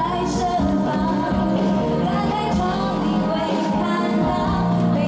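Live pop song played over a PA system: a woman singing into a microphone over band backing with a steady beat.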